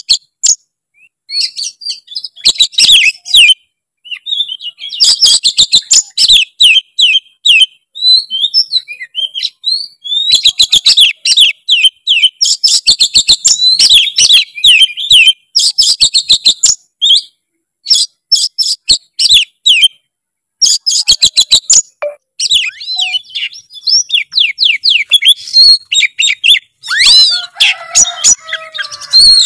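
Oriental magpie-robin (kacer) singing in loud bursts of rapid, varied phrases: clear whistles mixed with fast chattering and clicking notes, full of mimicked fill-in notes (isian). The bursts are separated by pauses of a second or two.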